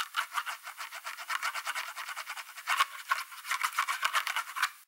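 Pen scratching across paper in a quick, uneven run of short strokes: a handwriting sound effect.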